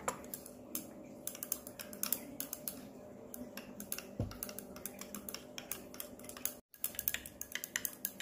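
Metal stirring rod stirring clear gel in a glass beaker, clinking against the glass in quick irregular clicks, several a second. The sound cuts out completely for a moment a little after two-thirds of the way in.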